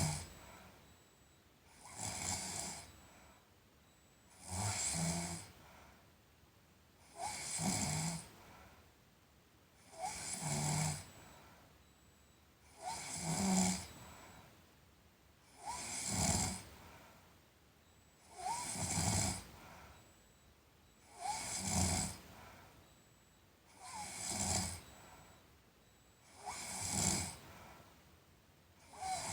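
A sleeping person snoring in a steady rhythm, about one snore every two and a half to three seconds, each lasting about a second.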